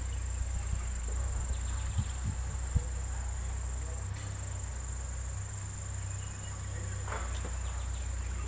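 Insects buzzing steadily at a high pitch, with a few light knocks about two to three seconds in.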